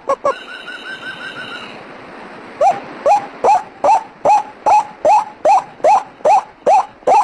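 White-breasted waterhen (ruak-ruak) calling, a lure recording of its loud repeated 'kru-ak' notes, each a quick rising note, about two and a half a second. Just after the start the series breaks for a couple of seconds into a quieter, higher, fast-pulsed trill, then the calls resume.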